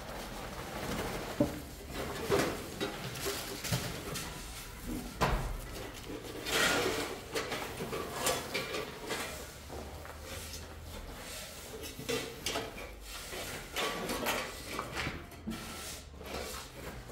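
Irregular knocks, scrapes and clatter of hand work with tools and building materials in a bare brick room, with sharp knocks every second or two.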